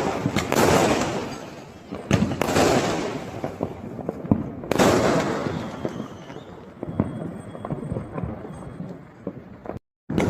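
Fireworks going off: three loud bursts about two seconds apart, each trailing into crackling that fades, then scattered smaller crackles. The sound cuts out completely for a moment near the end.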